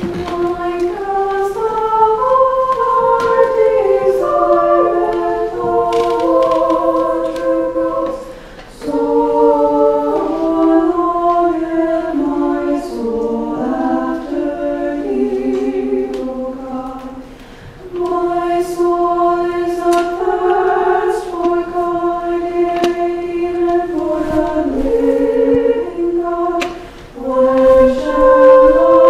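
Church choir singing a cappella in harmony, in phrases broken by short pauses about 8, 17 and 27 seconds in.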